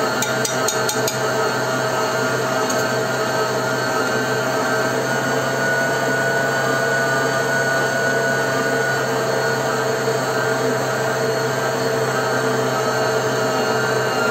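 SilverCrest stand mixer's motor running steadily, its dough hook kneading bread dough. A few light clinks of a metal spoon against a glass jug in the first second.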